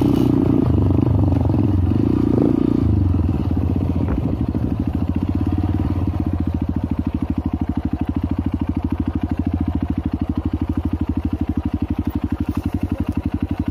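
Trail motorcycle engine running under the rider, working harder for the first few seconds, then dropping to a low, even chugging from about three seconds in.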